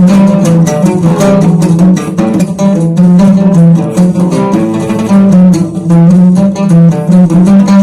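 Arabic song music with a plucked-string sound over a pulsing bass line and steady percussion.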